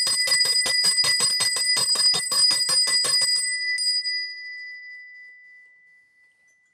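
Small hand cowbell shaken rapidly, its clapper striking about six times a second, ringing a clear high note near B6. The shaking stops about three and a half seconds in, one last strike follows, and the note rings on and fades away over the next two seconds.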